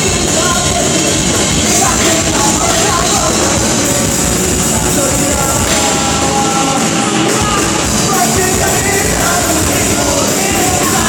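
Live rock band playing loud, punk or metal-style, with heavy drums and guitars under a singer's shouted vocal. The low end drops back for a moment about six seconds in, then comes back in full.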